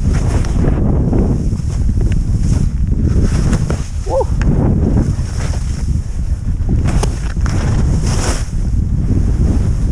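Wind buffeting the helmet-camera microphone during a fast ski descent, a loud steady rumble, with the skis hissing and scraping over the snow and the hiss surging twice late on through the turns. A short pitched squeak sounds once about four seconds in.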